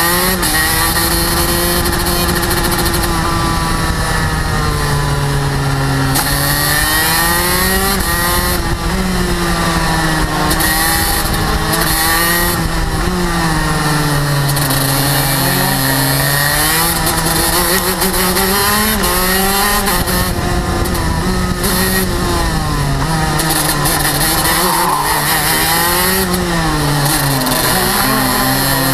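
TM K9B 100cc two-stroke kart engine heard close up from the kart, revving high and then dropping in pitch into each corner, again and again.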